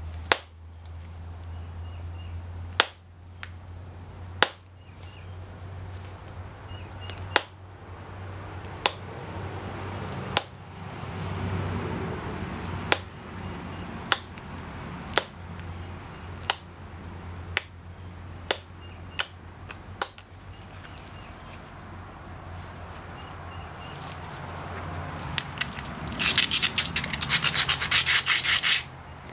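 Copper-tipped pressure flaker pressing flakes off the edge of a Texas tab preform: a sharp snap every second or two, about fourteen in all, over a steady low hum. Near the end, about three seconds of fast, dense scratching against the stone.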